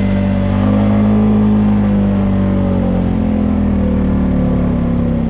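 ATV (quad bike) engine running hard at high revs, its pitch rising a little about a second in and easing slightly lower toward the end.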